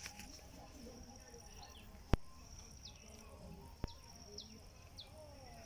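Riverbank ambience: an insect trills in high, pulsing stretches that stop and start, while a bird gives short downward chirps. Two sharp clicks land about two and four seconds in, the first the loudest event.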